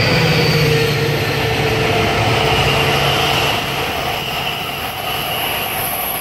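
NJ Transit GP40PH-2 diesel locomotive's EMD two-stroke engine running loud as it passes close by. Its low engine note fades after about three and a half seconds, leaving the steady rolling noise of the trailing passenger cars going past on the rails.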